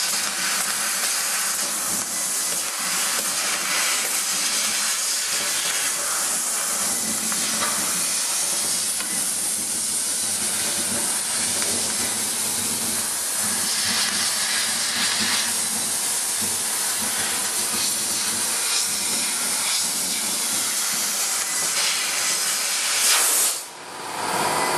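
5-axis CO2 laser cutting head cutting pressed sheet metal: a steady, even hiss from the assist-gas jet and the cut. Near the end it swells briefly, then dips sharply.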